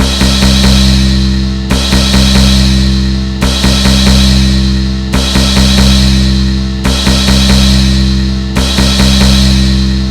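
Drum sound effect looping: a quick flurry of drum hits, then a deep ringing decay, repeating about every 1.7 seconds, about six times.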